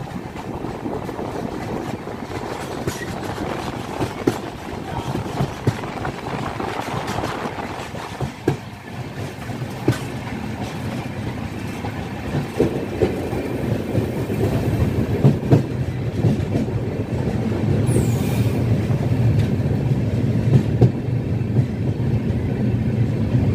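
Rajdhani Express passenger train running on the track, its wheels clicking over rail joints. A low rumble grows louder through the second half.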